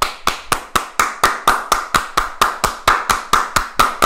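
Two people clapping their hands in a fast, steady rhythm, about four claps a second.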